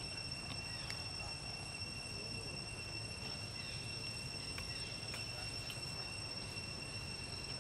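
Insects droning steadily with a high, even whine over a low outdoor rumble, with a few faint clicks.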